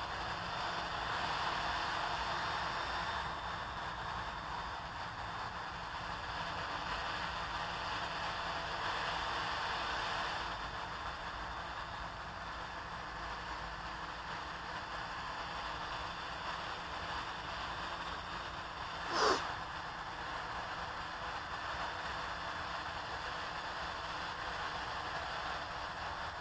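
Small quadcopter hovering overhead, its propellers giving a steady whir that is a little louder for the first ten seconds or so. One brief sharp sound cuts in about two-thirds of the way through.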